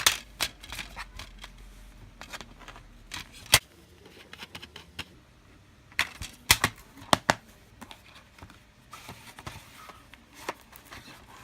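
Plastic DVD cases being handled: sharp clicks and knocks with light rustling between, a loud click at the start and a cluster of clicks about six to seven seconds in.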